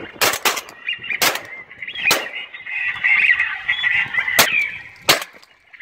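Ducks calling, a steady chatter of high honks and quacks, broken by about six sharp cracks spread through it.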